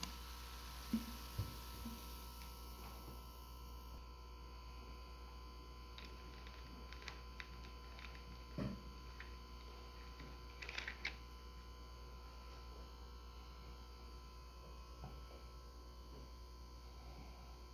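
A steady low electrical hum, with the faint hiss of freshly poured cola fizzing in a glass that fades out about four seconds in. A few small clicks and soft knocks come and go, a cluster of them near the middle.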